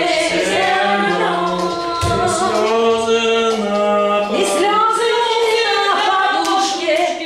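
Unaccompanied singing of a slow song phrase: long held notes with gliding changes of pitch, sung as a practice line in a vocal lesson.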